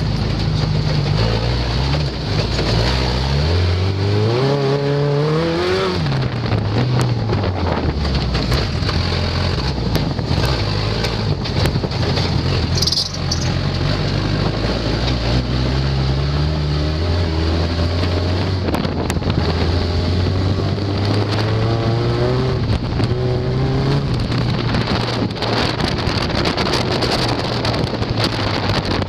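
Off-road race vehicle's engine running hard, revving up to a peak a few seconds in, dropping off sharply, then climbing again near the end. Knocks and clatters come from the vehicle jolting over rough ground.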